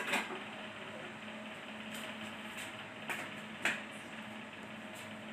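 A few short metallic clicks and knocks from a socket wrench and pulley-holding tool working on the drive pulley nut of a Yamaha Mio Sporty's CVT as it is tightened, over a faint steady hum.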